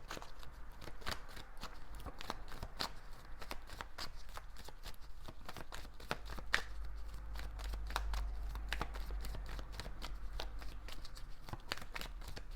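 A deck of tarot cards being shuffled by hand: a continuous, irregular run of short card clicks and rustles.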